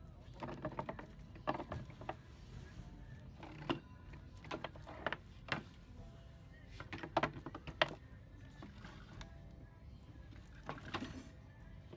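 Dollar-store ambience: a low background with faint music and voices, and irregular short clatters and rustles scattered throughout.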